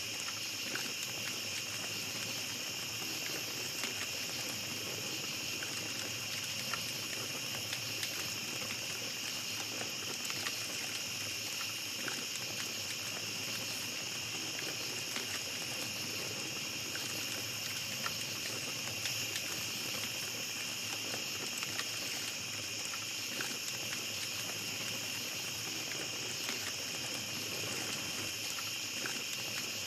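Small campfire crackling with scattered sharp pops, over a steady high-pitched chorus of night insects.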